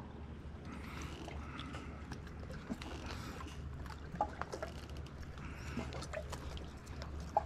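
Outdoor ambience: a low steady rumble with scattered light clicks and knocks.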